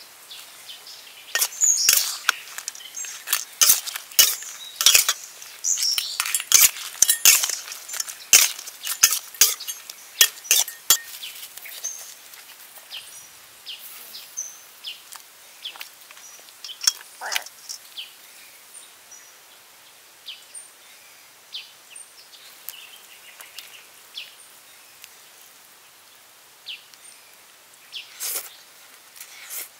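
Metal utensils clinking and clicking against a wok and dishes, many quick sharp clinks for the first ten seconds, then sparser, quieter ones. Birds chirp faintly now and then.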